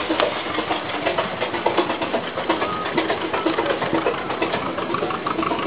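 1912 Frick Eclipse steam traction engine running: a fast, steady mechanical ticking and clatter over a hiss of steam from the boiler.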